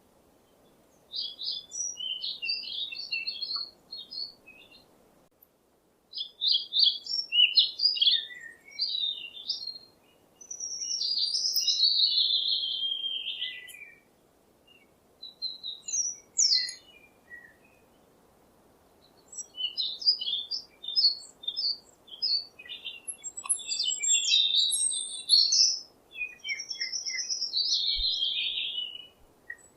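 Songbird singing in phrases of quick high chirps and warbles with short pauses between them, some phrases running down in pitch at the end.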